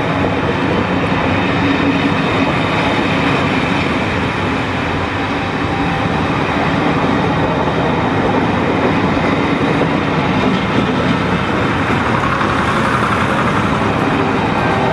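Departing passenger train rolling past at low speed: a steady rumble and clatter of wheels on the rails.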